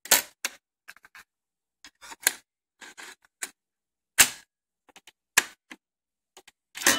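Scattered sharp mechanical clicks of a TEAC A-360S top-load cassette deck's keys and controls being worked by hand, about seven in all, the loudest about four seconds in and another just before the end.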